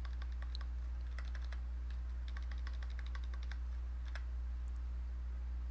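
Computer keyboard typing: several quick runs of keystrokes, then a single keystroke about four seconds in. A steady low hum runs underneath.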